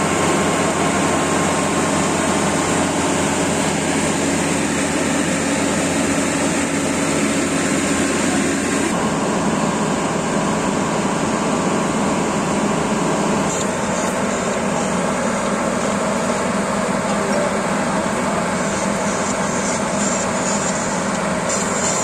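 Kubota AR90 combine harvester's diesel engine and threshing machinery running steadily under load at close range. The sound changes abruptly about nine seconds in and again around thirteen seconds in.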